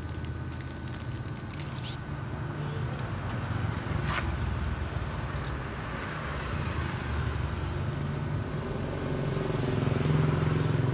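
Low, steady rumble of passing motor vehicles that swells near the end. Over it come a few light clicks and rustles of the plastic bag and the scale's iron hooks at the start, and one sharper metal click about four seconds in.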